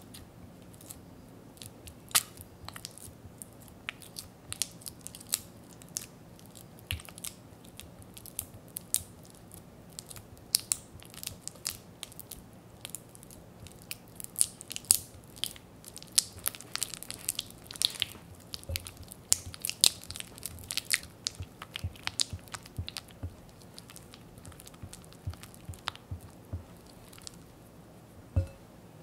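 Silicone spatula creaming softened butter in a glass bowl: soft squishing with irregular clicks and taps of the spatula against the glass, busiest about halfway through.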